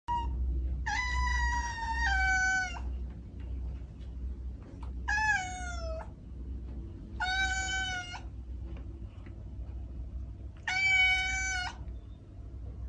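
A kitten meowing four times, high-pitched: a long first meow that drops in pitch partway, a shorter falling one, then two steady ones. A low rumble runs underneath.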